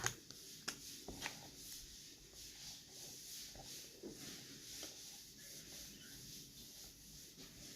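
Faint crackling and squishing of a crunchy slime full of little beads being worked by hand, with a few small clicks in the first second or so.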